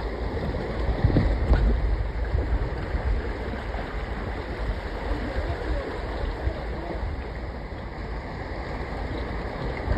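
Small waves lapping against the rocks of a jetty, with wind rumbling on the microphone; a louder gust about a second in.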